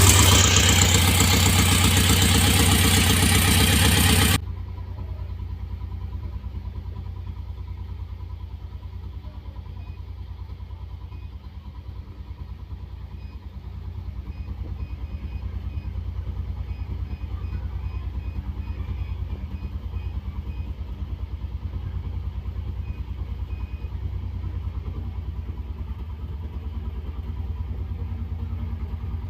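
Conventional petrol car engine running steadily at idle with a low pulsing hum. It is much louder for the first four seconds, then drops suddenly, and runs a little louder again from about halfway through.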